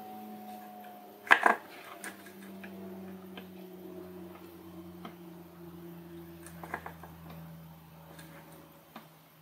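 Small taps and clicks of hand-soldering surface-mount LEDs on a circuit board: a sharp double knock about a second and a half in, and a few faint clicks near seven seconds, over a faint steady hum.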